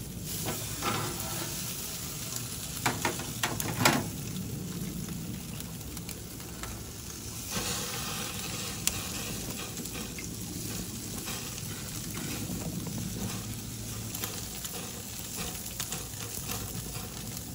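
Skin-on northern pike fillet sizzling steadily on a hot gas grill grate, with a few sharp clicks of metal tongs about three to four seconds in.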